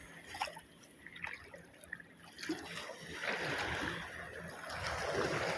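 Shallow seawater trickling and splashing in small irregular sounds, then a wash of small waves that grows louder in the second half.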